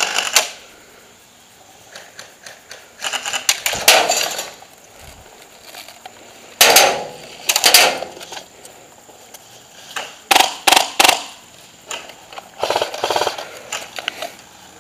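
Airsoft guns firing in several bursts of rapid shots, with a few separate single shots about ten seconds in.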